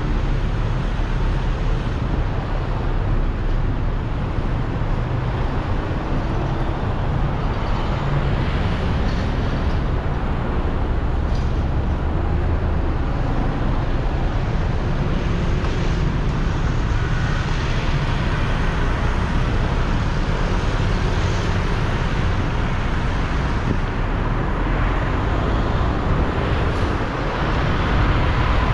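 Steady road traffic noise: a continuous low vehicle rumble with a noisy hiss above it and no single distinct event.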